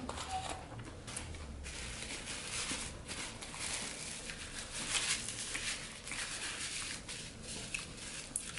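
Chewing a mouthful of Big Mac: soft, irregular wet mouth sounds, with a paper napkin rustling against the mouth partway through.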